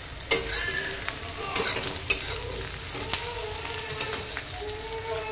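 Sliced onions sizzling in hot mustard oil in a kadhai while a steel spatula stirs them, with several sharp clicks and scrapes of metal on the pan. The onions are being fried toward golden brown.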